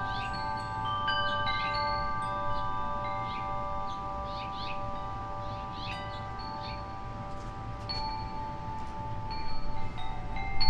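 Wind chime ringing: several long overlapping tones hang on, with occasional higher notes struck, and a cluster of louder fresh strikes near the end.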